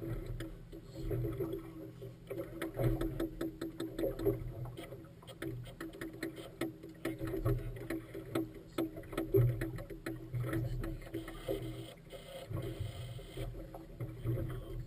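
Choppy river water slapping against the side of a small boat, an uneven wash broken by frequent irregular knocks and clicks.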